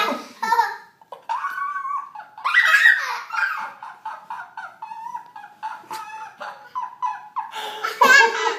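A man and a toddler laughing together in repeated bursts, with a brief pause about a second in and the loudest laughter around three seconds in and again near the end.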